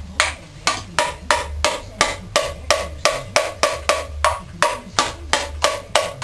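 Steady hammer blows, about three a second, on an engine oil pan that has been glued on with sealant, striking to break it loose. Each blow is sharp with a short ring.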